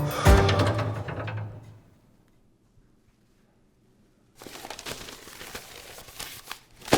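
A sound with a low pitch and overtones fades out over the first two seconds, leaving near silence. About four seconds in, soft rustling noise with scattered light clicks begins, ending with a sharp click.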